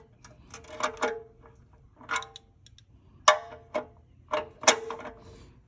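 Irregular handling knocks and clicks, about a dozen sharp taps, some with a short metallic ring, as a phone camera is moved and repositioned.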